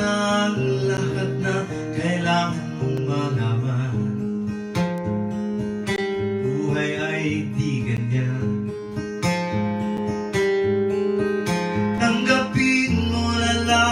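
Acoustic guitar playing an instrumental passage of a song, strumming chords with melody notes over them.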